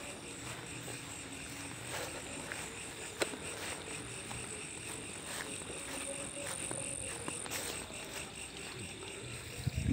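Night crickets and other insects chirring in a steady, high-pitched chorus, with a few faint clicks.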